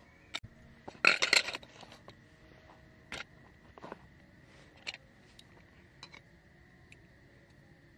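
Handling a small backpacking canister stove and its hard plastic case: a burst of clattering about a second in, then scattered small clicks and taps as the stove is fitted and screwed onto a gas canister.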